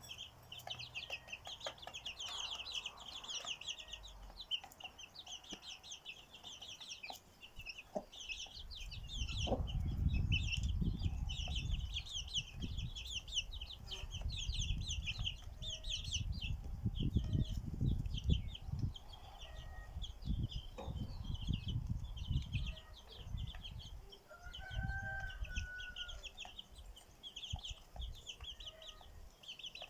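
A flock of birds or fowl chattering continuously with many rapid, high, short calls, one longer arching call near the end. A low, uneven rumble runs through the middle stretch.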